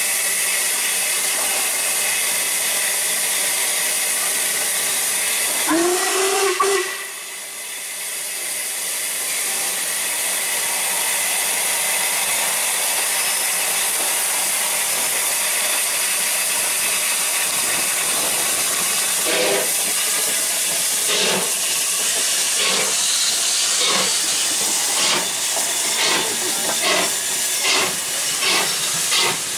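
LMS Jubilee steam locomotive 45596 Bahamas, a three-cylinder 4-6-0, hissing loudly with escaping steam; its whistle sounds once about six seconds in, rising briefly in pitch and then holding for about a second. From about two-thirds through, exhaust beats start and come quicker toward the end as the engine gets under way.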